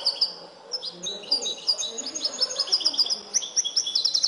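Caged European goldfinch singing a song trained in the 'limpio' (clean goldfinch) style: fast runs of short, repeated high notes and trills, with a brief pause about half a second in.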